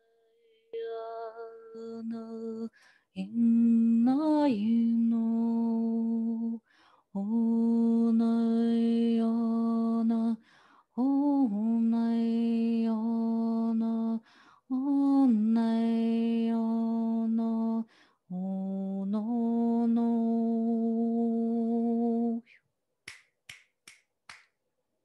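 A woman's voice toning wordless held notes on one low pitch: six long tones of about three seconds each, most sliding up into the note, with short breaks between. Near the end, four quick sharp clicks.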